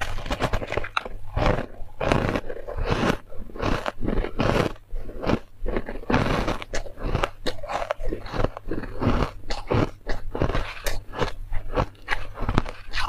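A person biting and chewing mouthfuls of refrozen white ice, close up: an uneven run of sharp crunches, a few a second.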